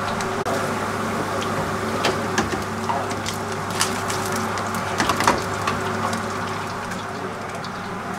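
Oil sizzling and crackling in a deep fryer as onion bhajis fry, with a few sharp clinks of metal tongs against the wire fryer basket in the middle, over a steady low hum.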